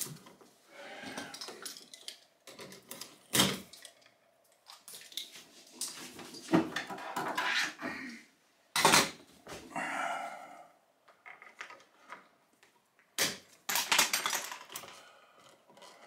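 Stiff copper 12-gauge electrical wires of a 12-3 cable being bent and curled up by hand: irregular scraping and rustling, broken by sharp clicks and knocks, the loudest about 3, 9 and 13 seconds in.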